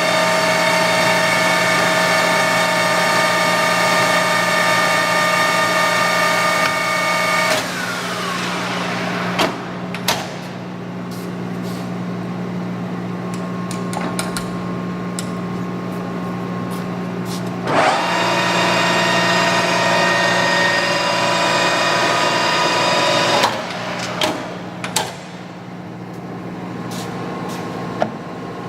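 Clausing Colchester 13x40 lathe headstock running at its top speed of 2,500 RPM with a steady multi-tone gear whine, then winding down about seven seconds in. A few sharp clunks from the controls follow. The spindle spins up again near the middle, runs steadily and is stopped about five seconds later, over a low steady hum.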